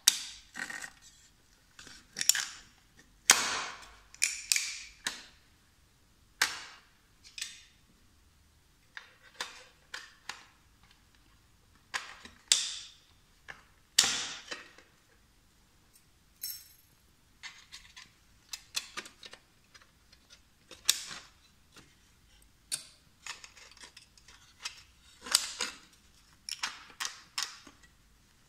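Aluminium snap frame's spring-loaded edge profiles being pressed and flipped by hand, giving a series of sharp clicks and snaps at irregular intervals, some in quick pairs.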